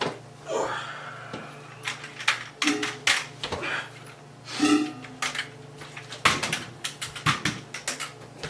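Irregular clatter of sharp knocks and clicks, like things being handled and moved, with a couple of short pitched sounds among them and a steady low hum underneath.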